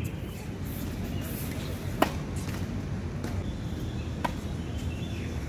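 Tennis ball impacts on an outdoor hard court: one sharp pop about two seconds in, then a couple of fainter knocks as a serve gets under way, over a steady low hum.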